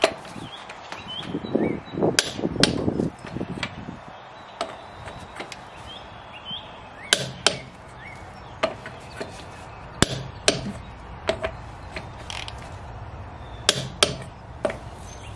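A 1/2-inch click-type torque wrench (Icon flex head) tightening wheel lug nuts: sharp metallic clicks at irregular intervals, some in quick pairs, from the ratchet and from the wrench's snap when it reaches its set torque, with the socket knocking and scraping on the nuts near the start.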